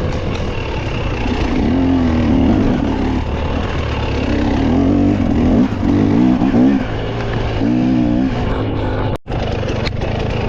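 Dirt bike engine revving up and down repeatedly as the throttle is worked on a slippery trail, over a constant rush of noise. The sound drops out completely for a moment about nine seconds in.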